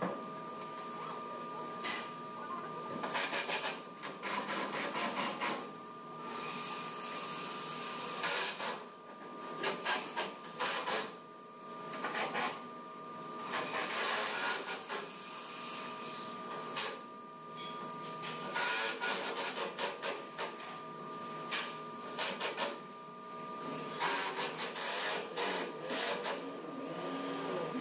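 Handheld cordless power drivers driving screws into wooden ceiling slats, in rattling bursts of about a second, repeated every couple of seconds and sometimes overlapping, over a steady hum.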